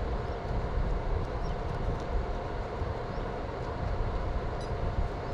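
Wind rumbling on the microphone, with a faint steady whine.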